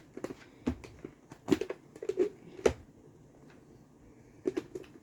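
Light knocks and clicks of kitchen containers and utensils being handled on a countertop: about half a dozen short, uneven taps, the strongest near the middle.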